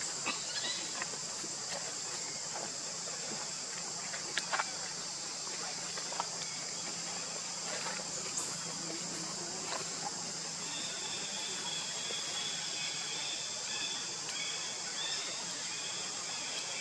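Steady high-pitched drone of insects, with a few faint clicks and, from about two-thirds of the way in, a faint thin higher call over it.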